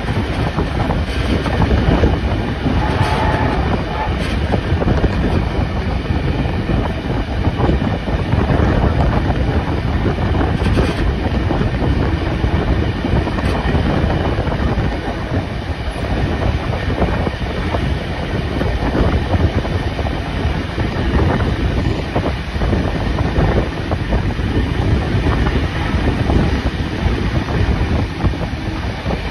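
Steam-hauled train running along the track: a steady rumble of wheels on rail with clickety-clack.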